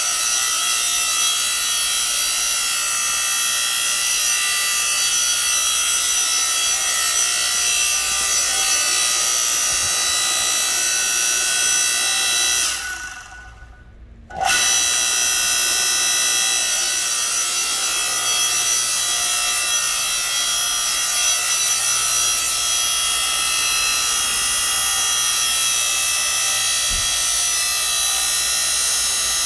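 Electric motor and hydraulic pump of a 7-ton log splitter, 3 HP on single-phase 220 V, running steadily with a high, many-toned whine over a low hum. The sound fades away for about two seconds midway, then comes back suddenly.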